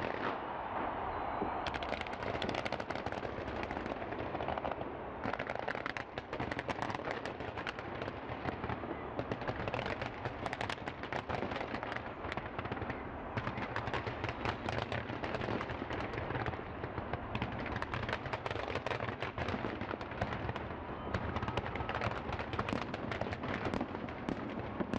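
Large fireworks display: rapid, near-continuous bangs and crackling from many shells and rockets bursting at once.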